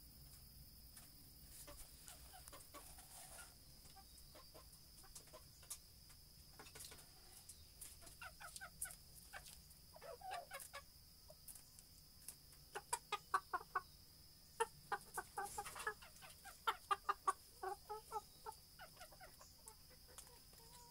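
A chicken calling in runs of short, rapid clucking notes, sparse at first and louder and denser in the second half. A faint steady high tone runs underneath.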